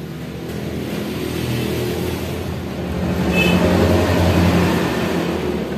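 A motor vehicle's engine passing by: a steady engine hum that grows louder, peaks a few seconds in, then fades near the end.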